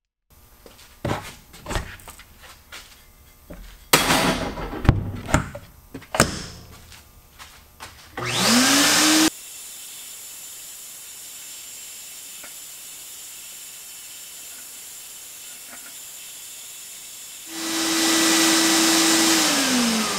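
Abrasive blast cabinet at work: knocks and clatter for the first few seconds, then a short loud burst with a rising whine. A steady hiss follows as the blast nozzle scours rust from inside an axe head's eye. Near the end a motor runs loud with a steady whine that falls in pitch as it winds down.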